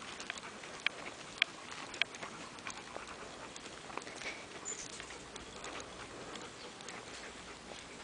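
Light, irregular footsteps crackling on dry ground, with a few sharper clicks in the first two seconds.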